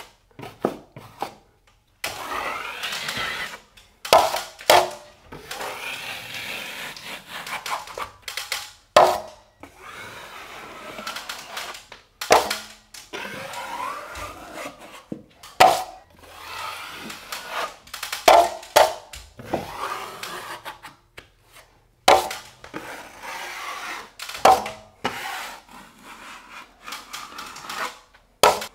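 Steel taping knife wiping paper drywall tape into wet joint compound along a ceiling seam: about ten scraping strokes, each starting sharply and trailing off over a second or two.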